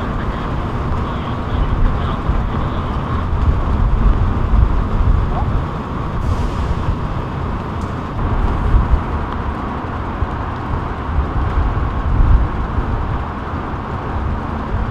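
Steady outdoor city street noise with a heavy low rumble that rises and falls.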